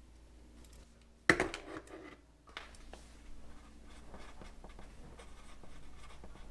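Pencil scratching on paper in short strokes, with a single sharp knock about a second in, the loudest sound.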